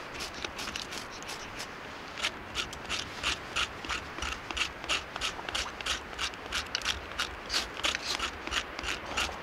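A knife scraping and shaving the wet outer layer off a piece of wood in quick, regular strokes, about three a second, getting going about two seconds in.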